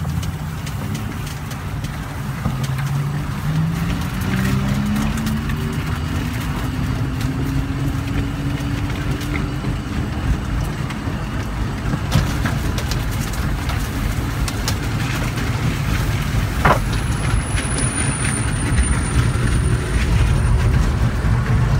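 Organic Transit ELF pedal-electric velomobile rolling along a concrete sidewalk, heard from inside its shell: a steady low rumble from the wheels and body with scattered knocks and rattles. A hum rises in pitch over the first several seconds.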